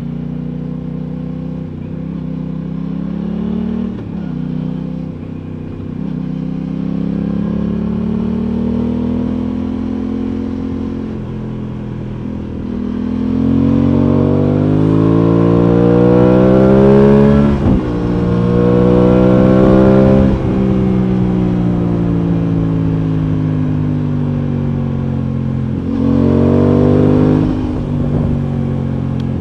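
Aprilia Tuono 660's parallel-twin engine under way on the road, heard from on the bike. It runs fairly steadily at first, then revs up with rising pitch, drops sharply once at a gear change about halfway through, winds down slowly as the throttle eases off, and gets a short burst of throttle near the end.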